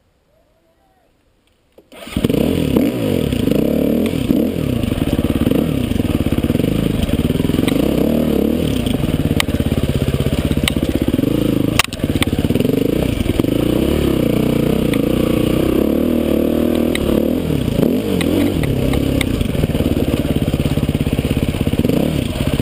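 Dirt bike engine starting about two seconds in, then running and revving up and down as the bike is ridden over a rough trail, with a sharp knock about midway.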